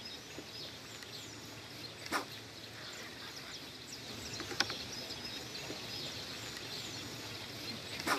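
Small birds chirping with many short, high calls over a steady outdoor hiss, with a few faint knocks. Right at the end comes a louder sudden splash as a fish strikes the floating EVA bait.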